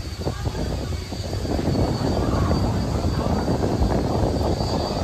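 Narrow-gauge train running, a steady rumbling noise that grows louder about a second and a half in.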